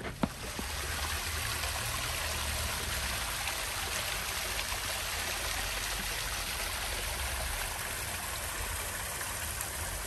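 Small stream of water running steadily, a continuous rush and trickle.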